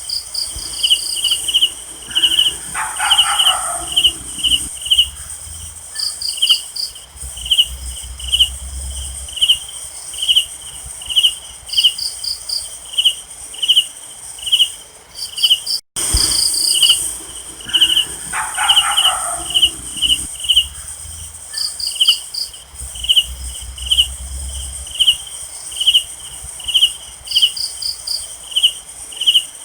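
Night ambience of crickets: one chirps steadily about two to three times a second over a steady high insect trill, with short quick runs of higher chirps now and then. A brief lower call comes about three seconds in and again around nineteen seconds.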